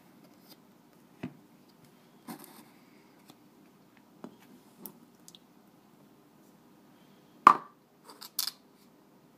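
Ingredients poured from plastic bowls into a stainless steel mixing bowl of cake mix: soft plops and squishes with scattered small knocks of plastic against metal. The loudest knock comes about seven and a half seconds in, with a couple more just after.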